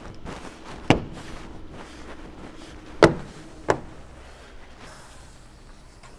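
Toyota Tacoma's plastic bed rail cap being pressed down by hand onto the bed rail, its clips snapping into place: three sharp snaps, about a second in, at three seconds and a lighter one just after.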